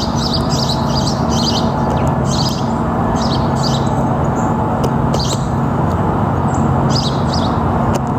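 Small birds giving short, high chirps, often two or three in quick succession, repeated every second or so, over a steady low hum.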